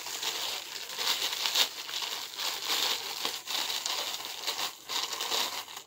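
Clear plastic garment packaging crinkling and rustling as it is handled and opened by hand to take out a folded suit.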